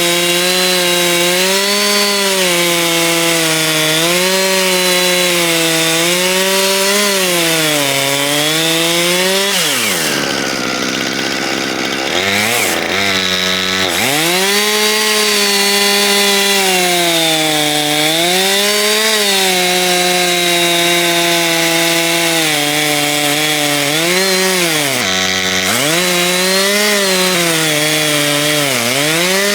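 Chainsaw running at high revs in an Alaskan chainsaw mill, ripping a log into boards. Its engine speed wavers under load, dropping sharply about ten seconds in and briefly again near the end before picking back up.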